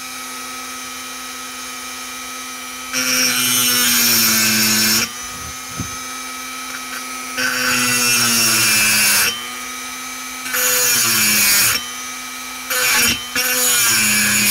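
Hand-held Dremel-style rotary tool running steadily, with five bursts of harsh grinding as its bit cuts metal from the port of a chainsaw cylinder. During each cut the motor's pitch sags under the load, then recovers between cuts.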